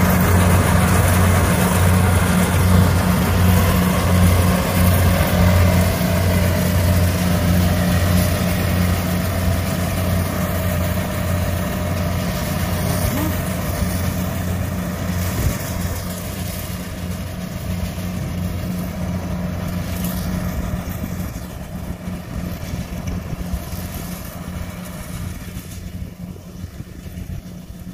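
Kubota rice combine harvester running under load as it cuts and threshes: a steady diesel engine hum with machinery noise, fading gradually as the machine moves away.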